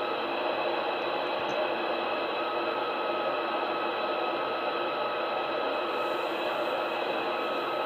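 CB radio receiver hissing with steady band static from its speaker: an S7 noise floor on the 11-metre band on a poor skip day. A faint steady whistle sits in the static from about two and a half seconds in until near the end.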